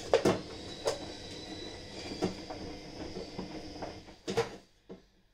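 A few sharp knocks and clatters over a steady background hum, the loudest pair near the end, after which the hum drops away.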